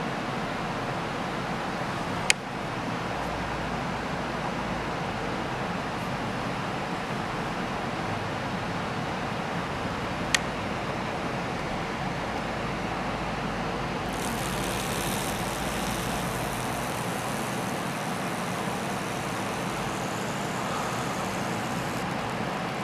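iPhone loudspeaker at full volume playing a low tone from a sound-generator app, heard as a steady buzzy rumble, with water sitting in the speaker being vibrated out. Two sharp clicks, one about two seconds in and one about ten seconds in.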